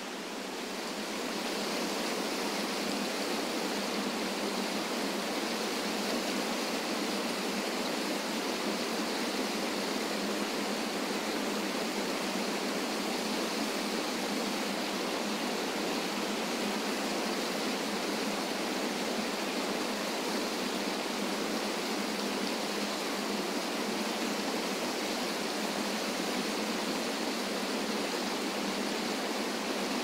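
Small waterfall on a rocky river, the water rushing steadily over the rocks into a pool; the rush grows a little louder over the first second or two, then holds even.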